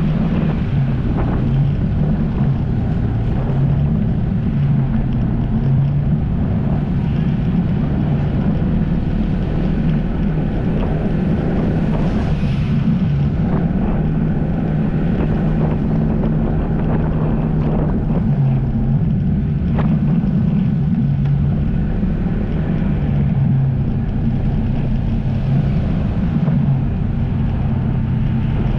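Jet ski engine running at a steady pitch while under way, with wind buffeting the microphone.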